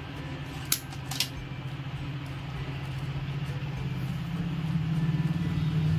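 Two sharp snips of a wire cutter cutting through electrical wire, about a second in and half a second apart, over a steady low hum that grows louder toward the end.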